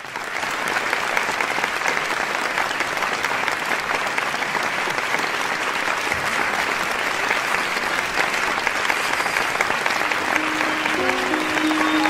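Audience applauding steadily, swelling in at the start. Near the end a few sustained music notes begin under the clapping.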